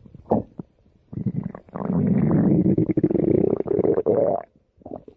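A person's stomach growling. A few short gurgling pops come first, then one long rumbling gurgle lasting about three and a half seconds, then a few more short pops near the end.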